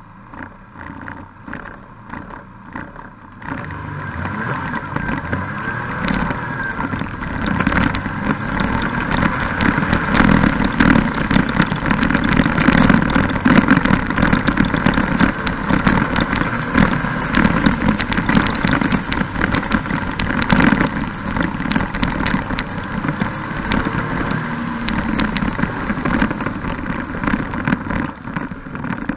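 Can-Am Spyder F3-S three-wheeler's Rotax three-cylinder engine pulling away from a rally stage start and running hard, with wind rushing over the onboard camera. It is quieter for the first few seconds and gets much louder about three and a half seconds in as speed builds.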